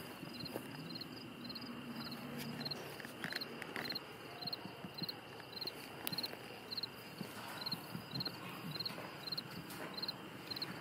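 Insects chirping steadily outdoors: short high chirps at about two a second over a faint, steady high-pitched trill. Soft rustles and light knocks of animals moving through grass come and go.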